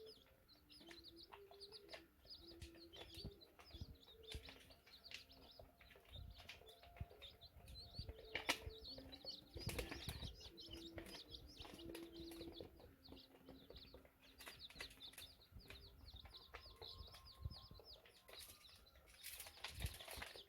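Faint peeping of day-old chicks: many short, high chirps overlapping throughout.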